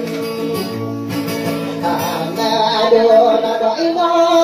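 A man singing into a microphone with guitar accompaniment, holding long notes that slide between pitches.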